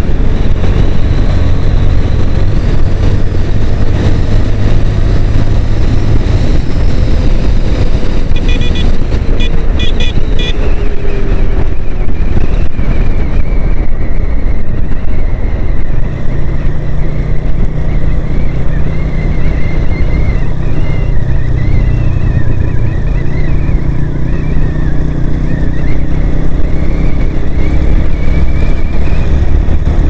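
Motorcycle engine running while riding, with air rushing past the microphone; the engine's steady note moves up to a higher pitch about halfway through. A quick run of short high beeps comes about nine seconds in.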